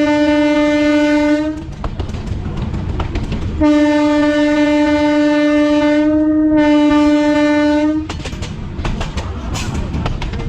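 Train horn sounding two long steady blasts, one ending about a second and a half in and a longer one of about four seconds with a brief break near its end, over the low rumble of the moving train. After the horn stops, the wheels clatter over the rail joints.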